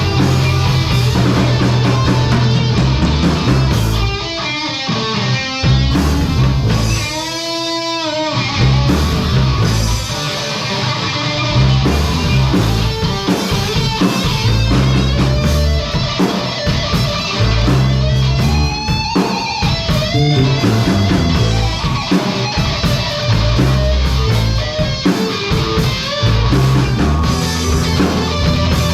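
Live blues-rock band playing an instrumental break: electric guitar over bass and drums, with a lead line of bent, wavering notes, one held note about seven seconds in and another slide about eighteen seconds in.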